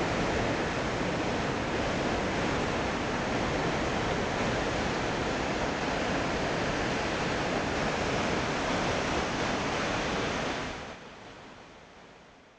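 Whitewater rapids rushing: a dense, steady roar of churning water that fades out about eleven seconds in.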